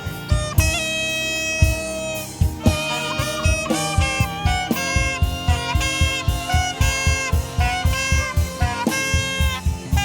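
Saxophone playing a melody of held and moving notes over a band with a steady drum beat.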